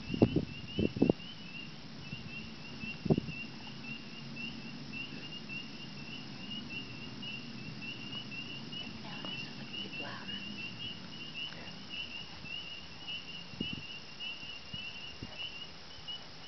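A steady low hum of unexplained origin, likened to a vent from a plant or air moving through a hollow pipe, heard under insects trilling continuously at a high pitch. A few sharp knocks come in the first three seconds, and the hum weakens in the second half.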